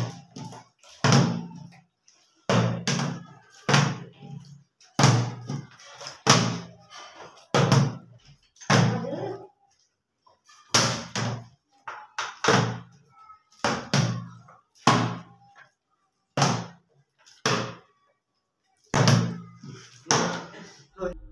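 Plastic water bottles flipped and landing on a wooden tabletop: a series of hollow thuds, about one a second and often in pairs, each dying away quickly.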